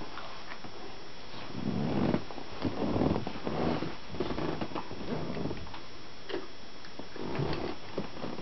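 Two puppies, a springer spaniel and a Maltese, play-wrestling: several bursts of low, rough play growling, loudest two to three seconds in and again near the end, with scuffling and small clicks in between.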